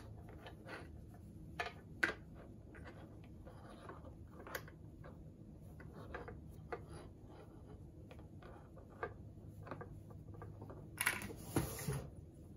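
Flannel fabric being handled and folded, with scattered light clicks and rustles. About eleven seconds in comes a brief clatter as a hand rummages in a box of plastic sewing clips.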